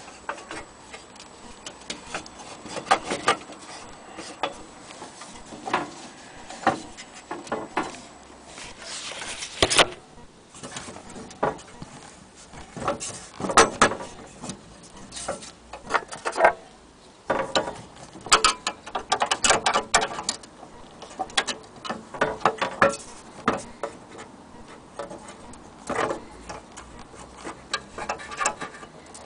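Irregular clicks, taps and knocks with some rubbing, as of an object being handled and moved about close by, some in quick clusters.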